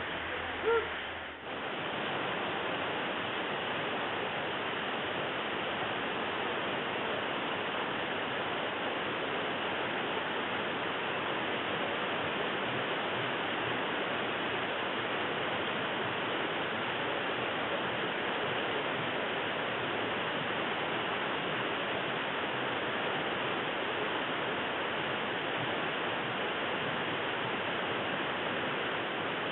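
Steady rain falling on trees and a tiled roof, an even hiss, with a short knock under a second in.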